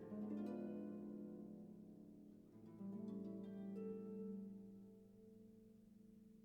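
Soft background music of plucked, harp-like notes. New chords are struck at the start and again about three seconds in, each ringing on and slowly fading.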